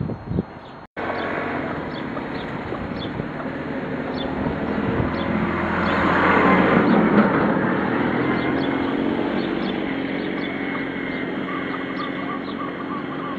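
A vehicle passing by, its noise swelling to a peak about six seconds in and then slowly fading. Small birds chirp faintly throughout, and a quick run of short calls comes near the end.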